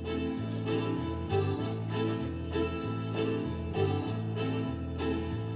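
Instrumental music with plucked string notes over a steady bass line, in an even rhythm.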